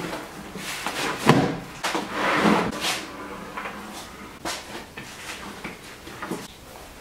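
Large mass of bread dough being slapped, folded and pressed by hand on a wooden board: irregular soft thuds and slaps, the loudest about a second in.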